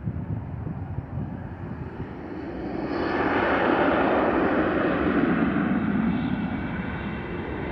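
Jet airliner's engines on the runway: a broad rushing jet noise that swells about three seconds in, stays loud for a few seconds, then eases off.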